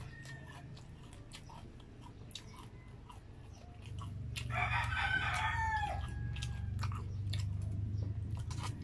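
Close-up chewing of fried spring rolls, heard as a run of short mouth clicks over a low steady hum. About four and a half seconds in, a rooster crows for about a second and a half, its call falling away at the end.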